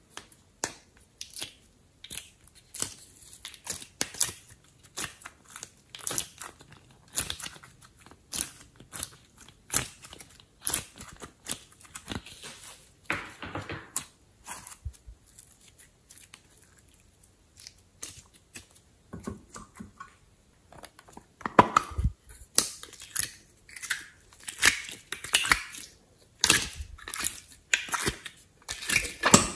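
Soft clay and slime pieces being pressed out of plastic and silicone trays and squeezed together in the hand: an irregular run of quick sticky clicks and squishes, thinning out around the middle and busiest near the end.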